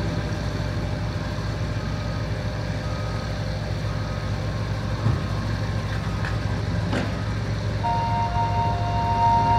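Diesel engine of heavy construction machinery running steadily with a low drone, with a couple of light knocks about halfway through. Steady high tones join near the end.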